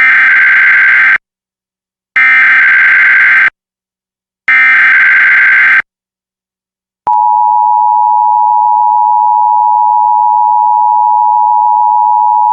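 Emergency Alert System SAME header: three bursts of digital data tones, each a little over a second long and about a second apart. About seven seconds in, the steady two-tone EAS attention signal (853 and 960 Hz together) starts and holds.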